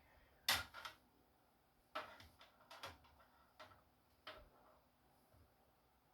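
A handful of light, irregular clicks and taps from handling the plastic skating-pond figurine as it is set up for a test run. No motor is heard running.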